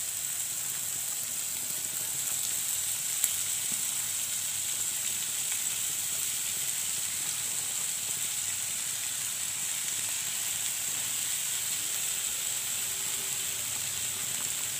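Diced potatoes, green peas and tomatoes sizzling steadily in oil in a nonstick frying pan, with one brief tick about three seconds in.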